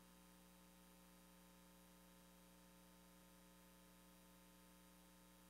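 Near silence: a faint, steady electrical hum from the sound system.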